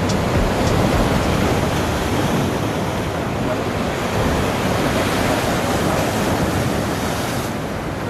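Sea surf washing over shoreline rocks: a steady rushing of water that rises and falls only slightly.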